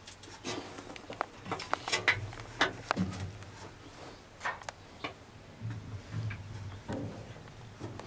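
Scattered light clicks and knocks at uneven intervals, with a low hum now and then.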